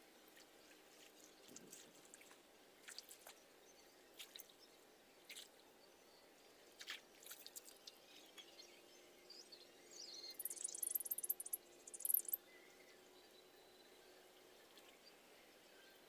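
Faint splashing and dripping of shallow muddy water as a man wades and gropes through it by hand: scattered small splashes, then a busier spell of splashing about ten seconds in that lasts a couple of seconds.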